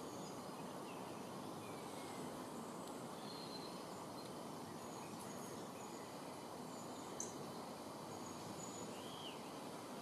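Steady outdoor background noise with faint, scattered high chirps and short whistled notes from small wild birds, one sharper chirp about seven seconds in.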